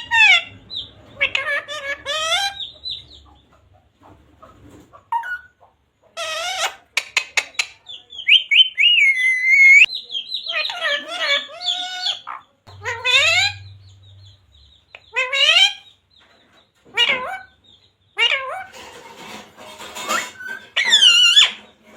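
Pet parrot calling in short bouts of high, wavering squawks and whistles, with gaps between.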